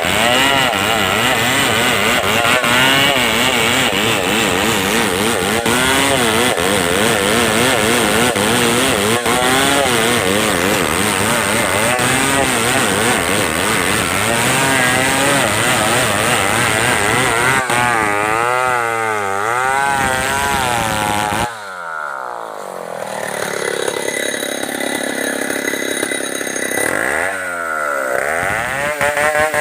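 Stihl 070 two-stroke chainsaw running at high revs, its pitch wavering up and down as it works through wood. About two-thirds through it suddenly drops back and runs quieter, then revs down and up again and is back at full throttle near the end.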